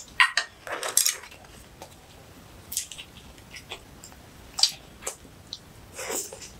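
Close-miked eating sounds: wooden chopsticks clicking against the dishes and mouth noises of chewing kimchi, in short sharp irregular clicks and crunches.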